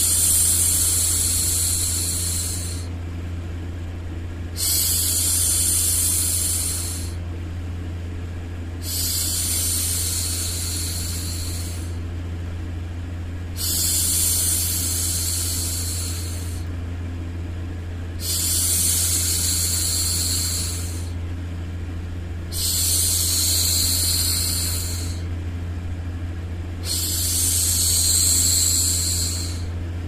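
A woman's voice making long hushing "shhh" sounds to soothe a baby, seven in a row, each about two and a half seconds long with short pauses between. Underneath runs a steady low white-noise hum.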